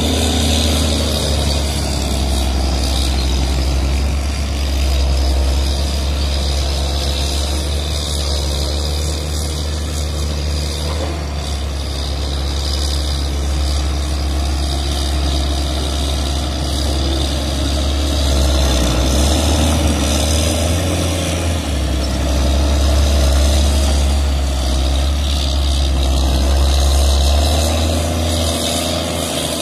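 John Deere 670G motor grader's diesel engine running steadily under load with a deep low rumble as it pulls its blade through loose gravel. The level swells and eases slightly a few times.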